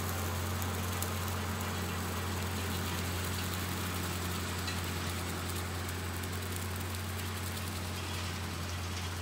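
Farmall 1066 tractor engine running steadily while pulling a rotary mower through tall grass, a low even drone that fades slightly as the tractor moves away.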